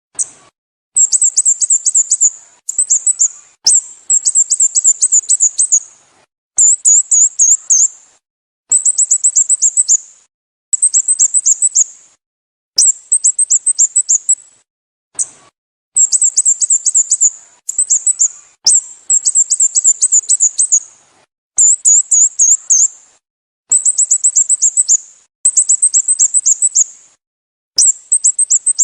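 Sooty-headed bulbul calling: quick runs of high chirps, each run lasting one to two seconds, repeated again and again with short pauses between.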